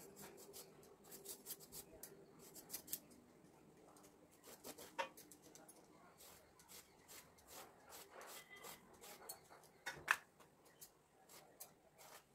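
Bottle gourd being cut on a boti: quick, repeated faint scraping strokes as the blade slices through rind and flesh, with a couple of sharper cuts about five and ten seconds in.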